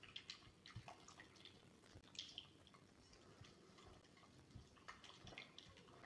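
Faint, scattered taps and soft rustles of hands mixing flour into a wet dough in a glass bowl, with flour being sprinkled in from a second bowl.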